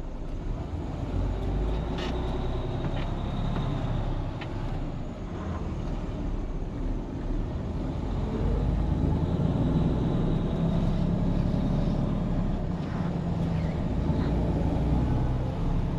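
Diesel engine of a loaded Freightliner semi truck running under load as it pulls away, heard from inside the cab. The engine gets louder about halfway through.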